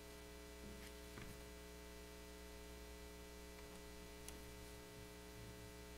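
Near silence with a steady electrical mains hum and a few faint clicks.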